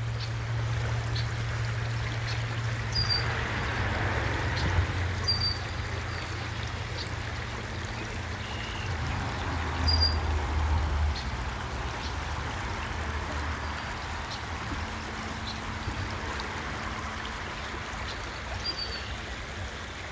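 Creek water running steadily over its bed, with a low rumble underneath that swells briefly about halfway through and a few short high chirps.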